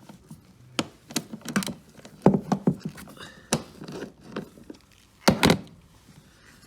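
Irregular knocks and clicks, about a dozen, from a hand tool and bolts being worked on the plastic engine-bay cover as its 8mm bolts are undone. The loudest knocks come about two seconds in and again near the five-second mark.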